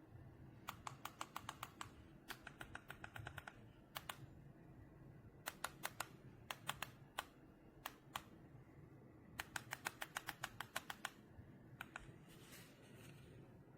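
Small plastic buttons on a handheld lamp remote clicking in quick runs of several presses, with short pauses between the runs.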